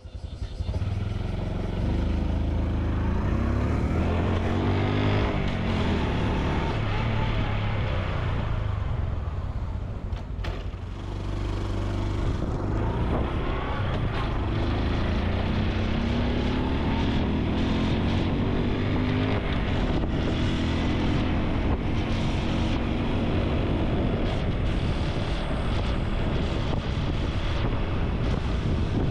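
Honda Super Cub C125's single-cylinder four-stroke engine and exhaust running while riding. Its pitch rises twice as it accelerates, easing off for a moment in between.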